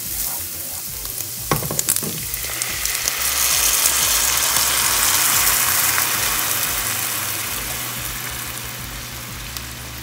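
Crumbled sausage and flour frying in a skillet, stirred and scraped with a spatula at first. A sizzling hiss then swells up, loudest near the middle, and slowly dies away as half-and-half is poured into the hot pan to start the gravy.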